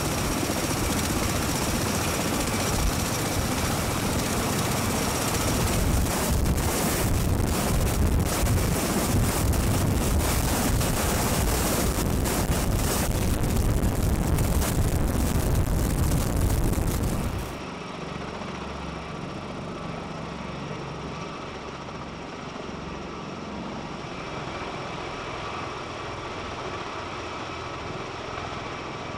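V-22 Osprey tilt-rotor's engines and rotors running at high power, loud and buffeting. About 17 seconds in, the sound cuts abruptly to a quieter, steadier rotor sound from another shot.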